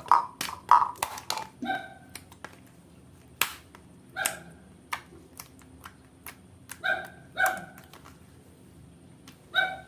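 Homemade slime being squeezed and stretched in the hands: irregular sharp clicks and short, ringing pops of trapped air, a dozen or so, none regular in rhythm.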